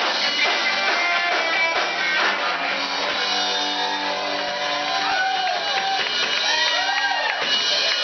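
Live rock band playing: electric guitars over a drum kit, the playing thinning to long held notes about three seconds in.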